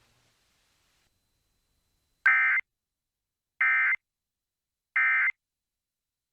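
Emergency Alert System end-of-message signal: three short, identical bursts of the buzzy digital data tones (the SAME header squawk), about a second and a third apart, marking the end of the required monthly test.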